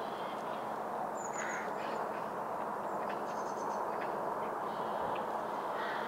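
Outdoor birds calling over a steady background noise: scattered short calls, a high chirp about a second in and a quick run of high chirps about halfway through.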